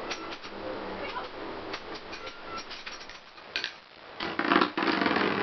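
Two metal Beyblade spinning tops, Rock Leone 145WB and Lightning L-Drago 100HF, spinning in a clear plastic stadium: a steady whirring rub of their tips on the plastic, with scattered sharp clicks as they knock together. About four seconds in comes a louder stretch of clashing and grinding that lasts about a second.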